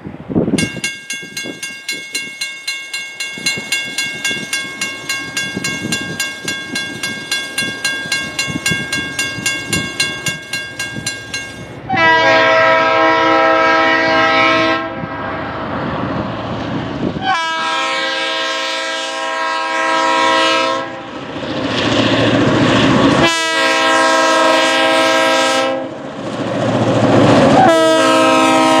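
Mechanical railroad-crossing bell starting up about half a second in and ringing with rapid, even strokes as the crossing signals activate. From about twelve seconds in, the horn of an approaching KBS GP38M-2 locomotive sounds four loud blasts over the bell, the last one still going at the end.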